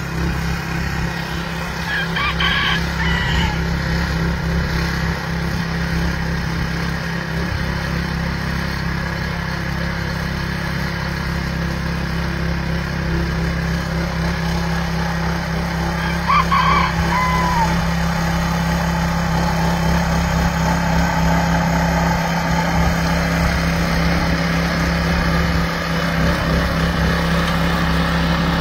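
Rear-tine garden tiller's gasoline engine running steadily as its tines churn the soil. A chicken calls briefly over it twice, about two seconds in and again around sixteen seconds.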